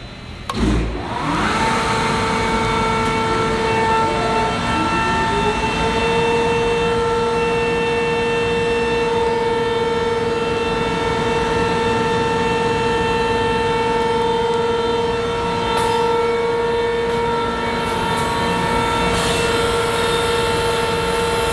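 A large workshop machine motor switches on about a second in with a thud. It then runs loud and steady with a whine, its pitch rising a little as it comes up to speed a few seconds later and then holding.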